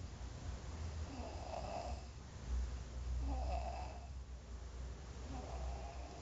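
A man snoring heavily in his sleep: three snores about two seconds apart.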